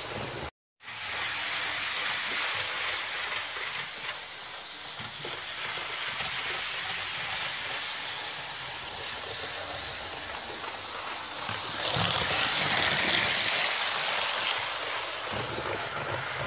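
HO-scale model train running on the layout track, a steady rolling rattle of metal wheels on rail and motor. It cuts out briefly just under a second in, and grows louder from about twelve seconds in as the train comes close.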